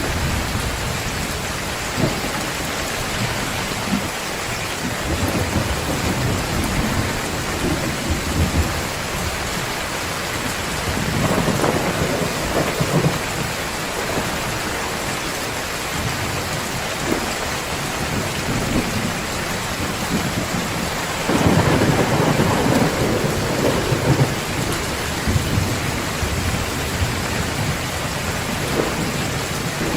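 Heavy rain pouring steadily, with thunder rumbling up twice, about a third of the way in and again past two thirds.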